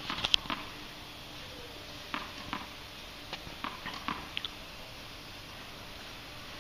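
Tennis ball bounced on a hard court while a player prepares to serve: a string of short, sharp taps at uneven spacing over the first four seconds or so.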